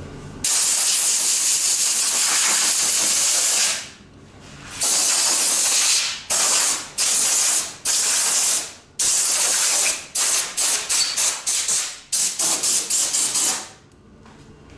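Pressurised spray hissing in bursts, with no motor under it: first a long burst of about three seconds, then one of about a second, then several shorter ones, ending in a run of short quick bursts.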